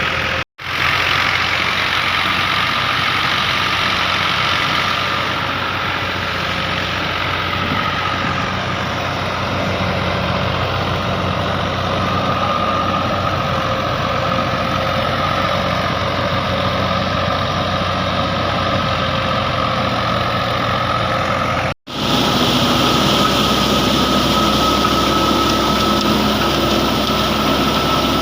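Engine of harvest machinery running steadily under load. The sound cuts out for an instant twice, about half a second in and again near the end, where the footage is joined.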